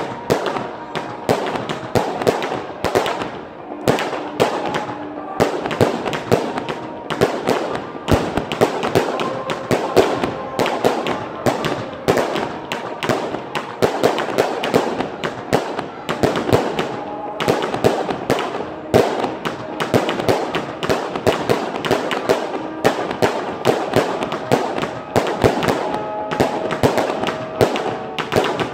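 Aerial fireworks bursting in a rapid, continuous barrage of bangs and crackles.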